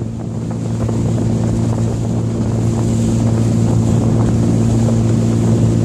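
Boat motor running steadily under way, a low even hum with the rush of water and wind behind it.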